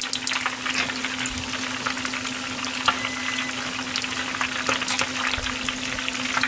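Flour-coated wakasagi (pond smelt) deep-frying in a pan of hot oil: a steady sizzle with many scattered crackles as the batter crisps. A steady low hum runs underneath.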